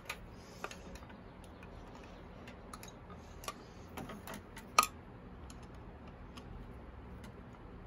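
A handful of small, irregular clicks and taps as a screwdriver and the rectifier are handled and fitted against the motorcycle's parts; the loudest is a sharp click a little under five seconds in.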